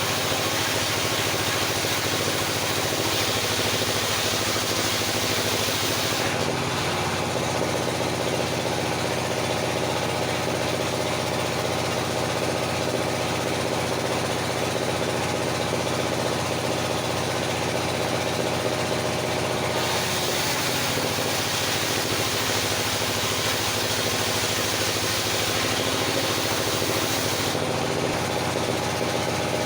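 Engine-driven circular sawmill running steadily, its tone shifting about six seconds in and back again about twenty seconds in.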